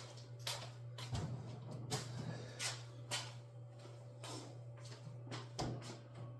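A series of light knocks, taps and short rustles from utensils and a plastic pie press being handled on a kitchen counter, over a steady low hum.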